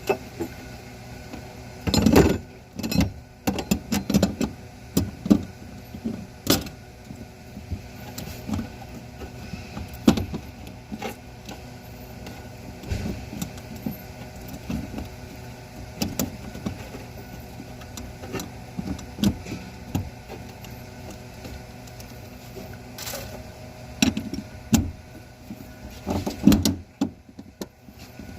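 Irregular clicks, knocks and clatter over a steady mechanical hum.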